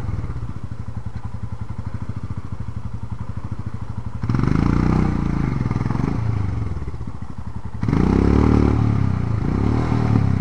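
Motorcycle engines: a steady idling beat throughout, with a bike revved up and down twice under load, about four seconds in and again near eight seconds, as it climbs over rocks.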